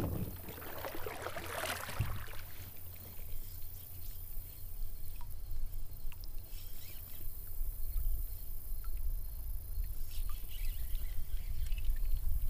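Outdoor river background noise from a kayak: a steady low rumble, with a brief rushing noise in the first two seconds and a few faint ticks.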